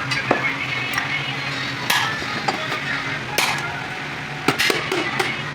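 Scattered metallic taps and clinks of hand tools working on clutch plate parts, over a steady low hum.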